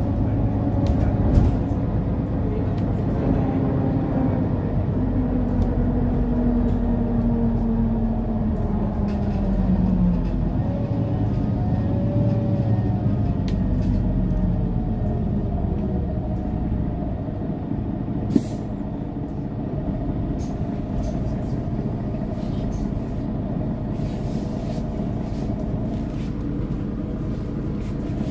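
Mercedes-Benz O530 Citaro city bus under way, heard from inside the passenger cabin: a steady engine and road drone, with a pitched note that falls slowly over the first ten seconds before levelling off. A single sharp click comes about two-thirds of the way through.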